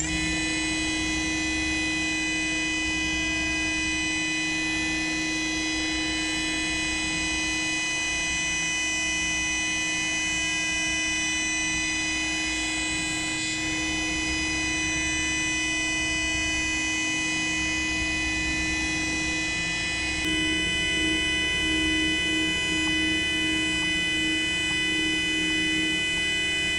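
Mazak Integrex mill-turn machine's spindle running fast as a small end mill cuts the anvil, a steady whine of several fixed tones over a low hum. About 20 seconds in it gets a little louder and the low tone starts to pulse.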